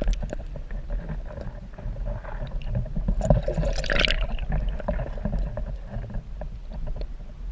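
Handling noise aboard a fishing kayak while a hooked chain pickerel is fought toward the boat: a low rumble with scattered clicks and knocks, and one short, brighter sound about four seconds in.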